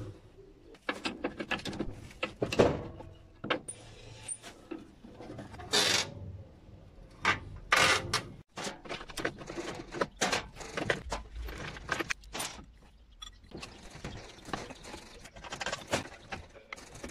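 Irregular metal clinks, taps and knocks from parts and hand tools being handled on a rusty lawn mower deck, with a few sharper knocks among softer handling sounds.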